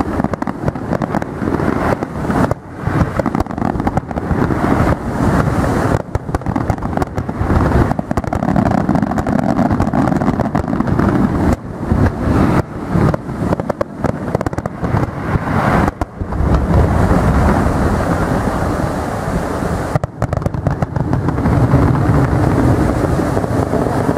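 Aerial firework shells bursting in a rapid, continuous barrage, the bangs running together into a dense rumble. After about sixteen seconds it settles into a steadier rumble as the display dies away.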